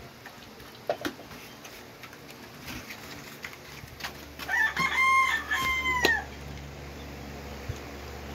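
A rooster crowing once, about two seconds long, starting about four seconds in, its call dropping in pitch at the end.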